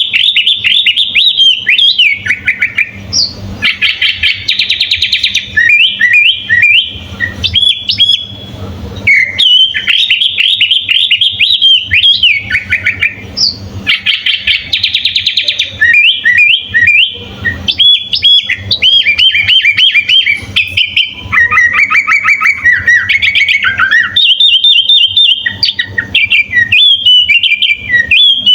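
Sooty-headed bulbul (kutilang) singing without pause: a fast, varied run of whistled notes and chirps, broken by rapid trills and, a little after the middle, a falling trill.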